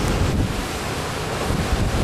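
Heavy ocean surf crashing and churning against a rocky shoreline, with wind buffeting the microphone.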